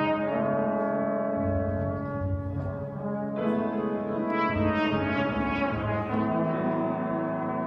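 Jazz big band playing a slow ballad, its brass section holding long sustained chords over low bass notes, with a fuller, brighter chord coming in about three and a half seconds in.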